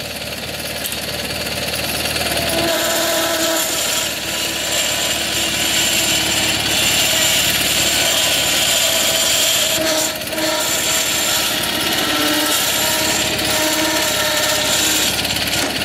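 Simplicity Sunstar garden tractor's 20 hp Kohler Magnum twin-cylinder engine running under load as the tractor drives in reverse. It grows louder over the first few seconds, with a steady high whine over the engine.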